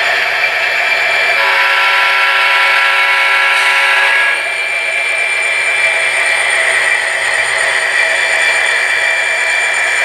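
Model diesel locomotive sound from the Tsunami 2 sound decoder in a Kato SD40-2, played through its small onboard speaker. The simulated diesel engine runs steadily, and a multi-note horn blast starts about a second and a half in, holds for about three seconds and cuts off.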